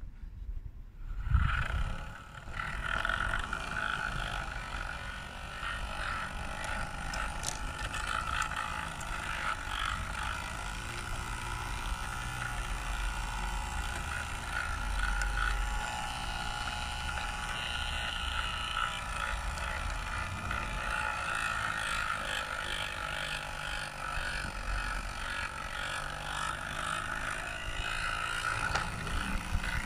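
Garden-railway locomotive running along its track: a steady mechanical whine from its drive, with rumble and light clicking from the wheels on the rails. A knock about a second in.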